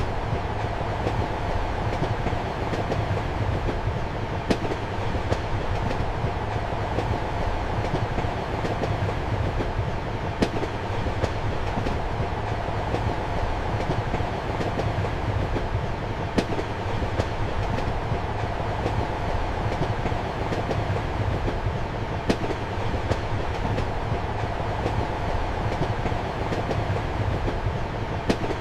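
Train running at speed, heard from inside a passenger compartment: a steady rumble with faint wheel clicks and a sharper click about every six seconds.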